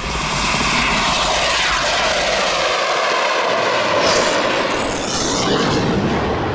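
Jet aircraft flying past: a loud roar whose pitch falls steadily as it goes by.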